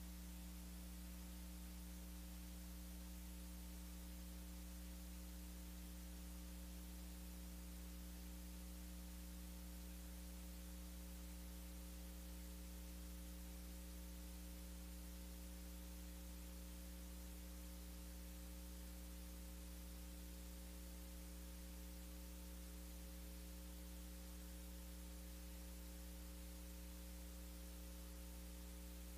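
Steady electrical mains hum with a buzz of higher overtones over constant hiss, unchanging throughout. No singing, music or crowd sound comes through.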